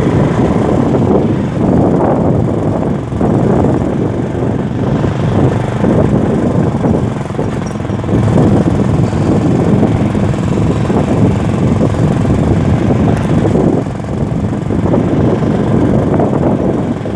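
A motor vehicle running steadily, a loud, continuous low rumble of engine and road noise.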